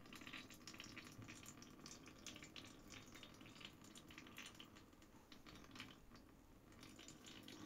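Thin stream of used engine oil trickling from the sump drain hole into a plastic drain pan, a faint, irregular patter of drips.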